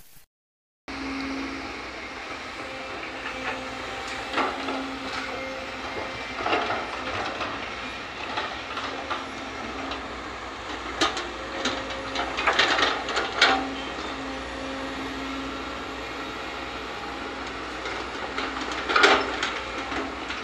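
Sumitomo hydraulic excavator's diesel engine running steadily, starting after a short silence, with several bursts of scraping and clattering soil and stones as the bucket digs; the loudest bursts come a little past halfway and near the end.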